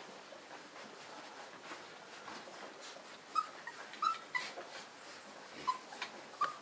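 Three-week-old Saint Bernard puppies whimpering in short, high squeaks while nursing. There are about half a dozen brief squeaks, mostly in the second half, over soft shuffling.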